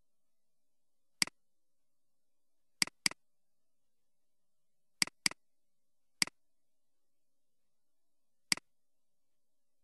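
Computer mouse button clicks: seven sharp, short clicks over near silence, a single one about a second in, two quick double-clicks near three and five seconds, and single clicks near six seconds and near the end.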